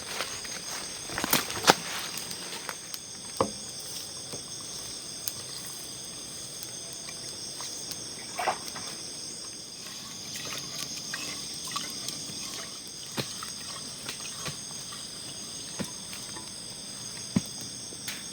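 Crickets or other night insects chirring steadily in several high-pitched bands, with scattered knocks and clicks of cooking gear being handled.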